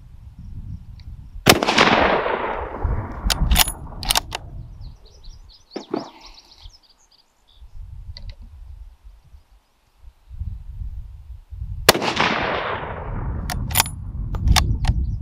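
.300 Winchester Magnum rifle firing twice, about ten seconds apart, each shot a sharp crack with a long echoing tail. A few sharp clicks follow each shot.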